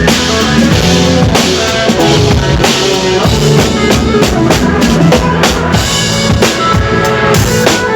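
Acoustic drum kit played in a busy, continuous pattern of kick, snare and cymbal hits, during a sound check, over music with held pitched notes.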